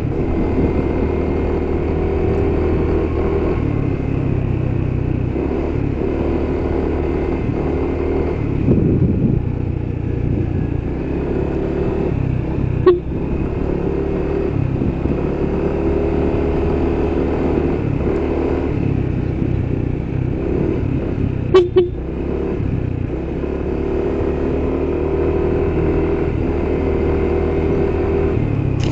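A vehicle engine running steadily while being driven on the road, with road noise. The engine note steps up or down a few times. A couple of short sharp clicks are heard about halfway through and again about two-thirds of the way in.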